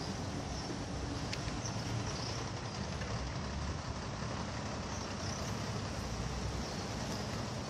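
Steady low rumble of road traffic running in a jam, with a diesel tipper truck close alongside.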